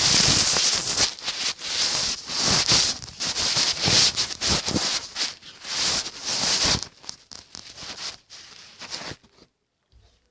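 Loud rustling and crinkling of packaging being handled, with many small crackles, stopping about nine seconds in.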